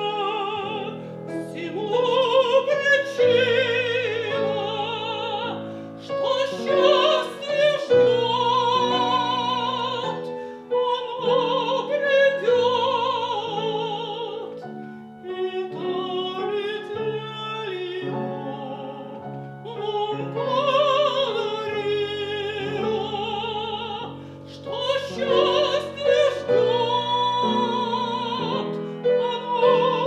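Mezzo-soprano singing in full operatic voice with a wide vibrato, accompanied by a grand piano.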